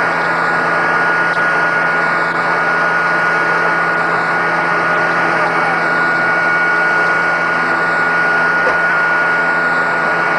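Loud, steady cabin noise of a Mi-8MTV-1 helicopter with its twin turboshaft engines and rotor running, a steady high whine running through it.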